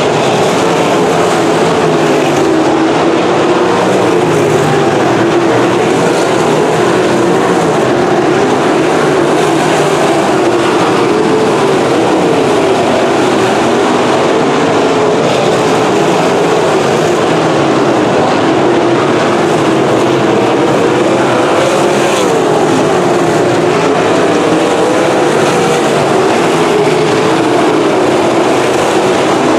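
A pack of winged sprint cars racing on a dirt oval, their V8 engines running loud and continuous. The overlapping engine notes waver up and down in pitch in slow waves as the cars circle the track.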